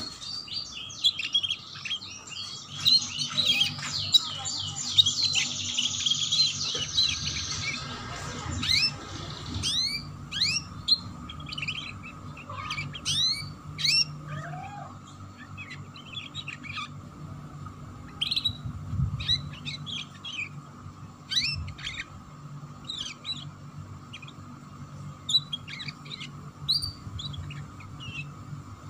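Canary singing a rough, rapid twittering 'ngeriwik' song. A dense fast run of notes fills the first several seconds, then it breaks into separate short chirps and upward-sweeping 'cuit' notes. This is the song style that keepers play as a lure to get young canaries singing.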